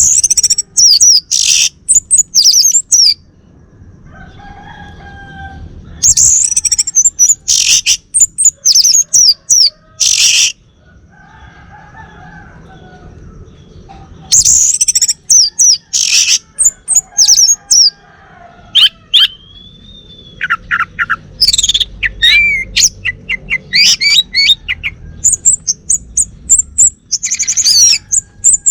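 Male orange-headed thrush singing in four bouts of loud, rapid, high, varied phrases, each a few seconds long, with short pauses between them. Fainter, lower chirps come in the pauses.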